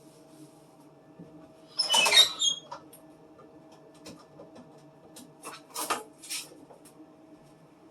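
A plastic item scraped across a refrigerator shelf with a loud squeak about two seconds in, then a few light knocks and clatters as things are set down on the shelves.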